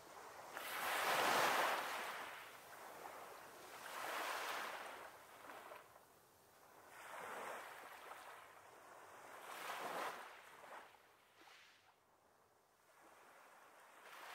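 Sea waves washing onto a beach, rising and falling in slow swells every few seconds, the first swell the loudest.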